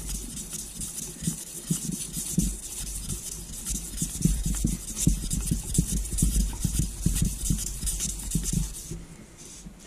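1200-grit wet-and-dry abrasive strip being worked back and forth around a lubricated crankshaft main bearing journal, a steady hissing scrub with light knocks. It stops shortly before the end.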